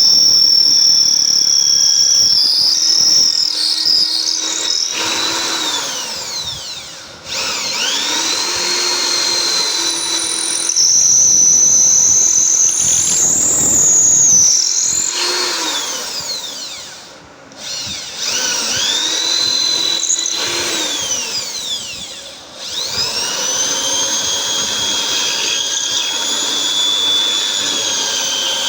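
Electric drill motor whining at high speed. Three times it winds down, its pitch falling, then spins back up to full speed.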